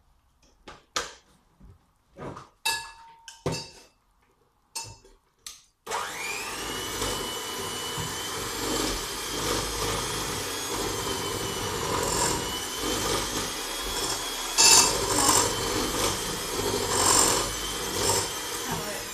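A few scattered clicks and knocks, then about six seconds in an electric mixer switches on, its whine rising briefly as it comes up to speed. It then runs steadily, beating cookie mixture.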